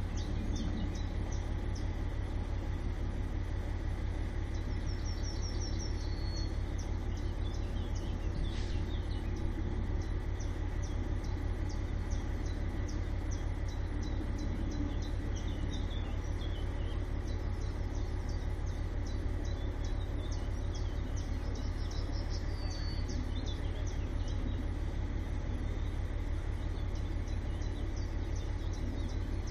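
Outdoor ambience: birds call a few times and insects chirr steadily over a constant low rumble.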